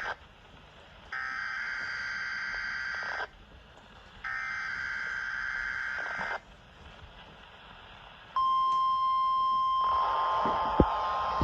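NOAA Weather Radio EAS/SAME header data bursts: buzzy digital screeches about two seconds long, the end of one at the start and then two more with a second's gap between them. About eight seconds in, a steady single-pitch alarm tone starts and holds, with noise joining under it near the end.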